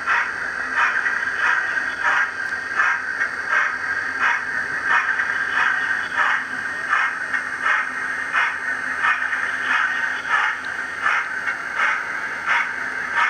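00 gauge model A4 steam locomotive running on the layout: a steady whine with a regular pulse about one and a half times a second, like slow chuffing.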